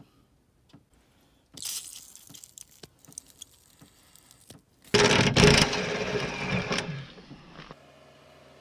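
Aerosol can of Liquid Wrench penetrating oil spraying onto rusty plow-bracket bolts: a short hiss about one and a half seconds in, some light clicks, then a louder, longer spray about five seconds in. Near the end a low steady hum takes over.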